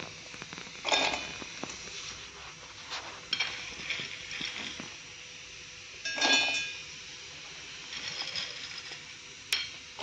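Dry long pepper pieces dropped by hand into a stainless steel mixer-grinder jar, clinking and rattling against the metal in several short bursts, the loudest about six seconds in. A single sharp click near the end.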